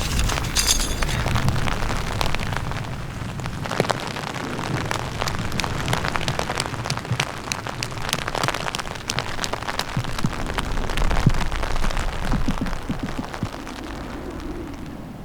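Rain from a passing mountain storm, with many irregular drops ticking sharply close to the microphone, over a low rumble of wind buffeting the microphone.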